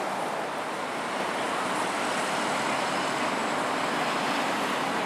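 Steady city street traffic noise, an even rush of passing vehicles with no single sound standing out.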